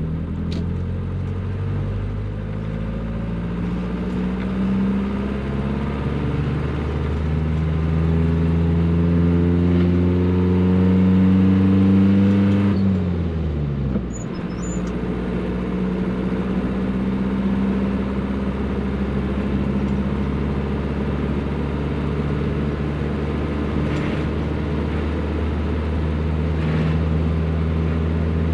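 1985 Mazda T3500 truck's naturally aspirated engine, heard from inside the cab, pulling with slowly rising revs; about thirteen seconds in the revs drop away quickly in a gear change, and it runs on steadily at lower revs in the higher gear, over road noise.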